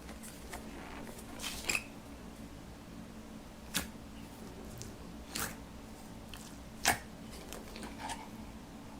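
Slime being handled and squished, giving scattered sharp clicks and pops, about half a dozen, over a faint steady hum.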